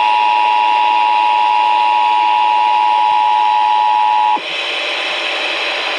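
Emergency Alert System attention signal over the radio: a steady two-tone alarm that cuts off suddenly about four and a half seconds in, leaving radio hiss before the test announcement.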